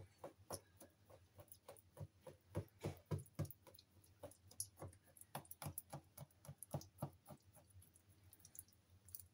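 A wooden skewer jabbed again and again into a raw turkey fillet on a glass cutting board, making quick light taps about three a second that thin out and stop near the end.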